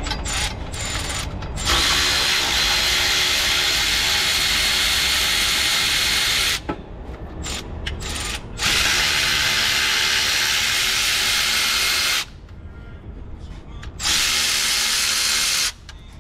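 Cordless power ratchet spinning bolts under the car, running in three long spells: about five seconds, then about three and a half, then under two. A few short clicks come before the first spell.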